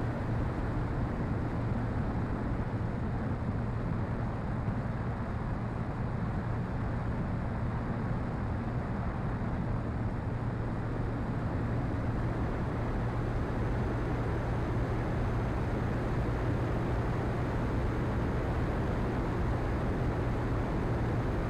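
Radio-controlled Top Flite Cessna Skylane model's engine and propeller droning steadily in level flight, with wind rushing over the onboard camera.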